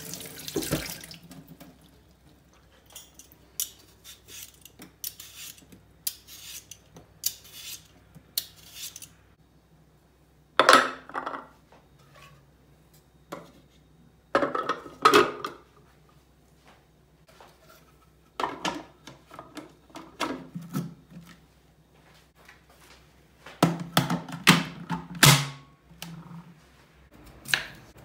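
Tap water running over a potato into a stainless-steel sink, stopping about a second in. Then scattered clicks and several loud clattering knocks of plastic and metal kitchen parts being handled as a food processor's plastic bowl and slicing disc are fitted. Near the end come light taps of a knife cutting a potato on a wooden board.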